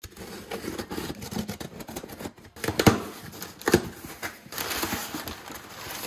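Kitchen knife slicing through packing tape on a cardboard box, then the flaps being pulled open and brown packing paper crumpling and rustling as a small box is lifted out, with a few sharp knocks of cardboard midway.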